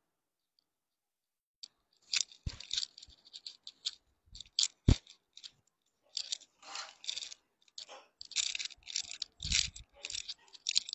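Rustling and crinkling of things being handled, with a few sharp knocks about 2.5, 5 and 9.5 seconds in.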